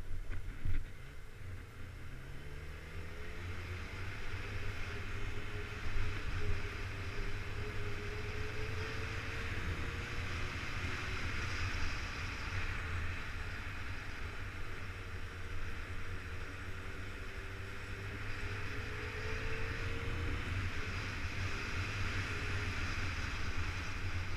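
Motorcycle engine running under way, its pitch rising and falling slowly with small speed changes, under a steady rush of wind on the microphone.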